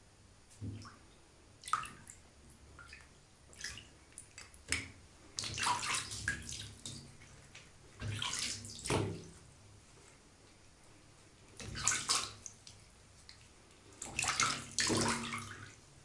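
Water splashing in a bathtub in several short, irregular bursts, with a few small clicks between them, as a hand scoops cool water over a Siamese cat's fur.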